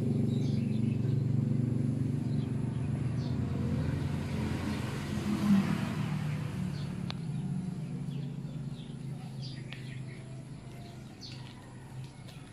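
Motor vehicle engine humming low and steady, fading gradually throughout, with a swell of hiss about five seconds in. Birds chirp briefly now and then.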